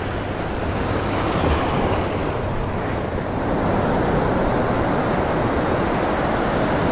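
Ocean surf, a steady rush of breaking waves and whitewater washing up the beach, swelling over the first second.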